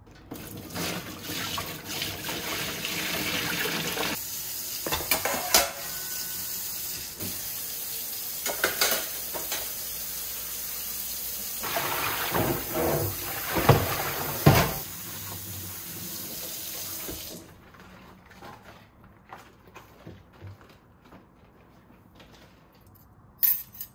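Tap water running into a sink while stainless steel kitchenware is rinsed, with occasional metal clinks of pots and utensils knocking together. The water stops about two-thirds of the way through, leaving a few light knocks and one sharp metal clank near the end.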